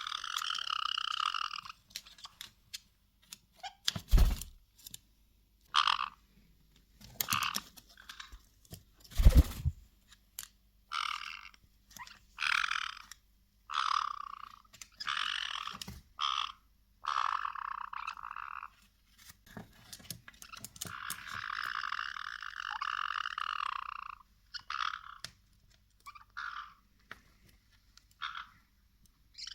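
Caique parrots making repeated harsh, raspy buzzing calls and squawks, some short and some drawn out for two or three seconds. Two loud thumps, about four and nine seconds in, are the loudest sounds.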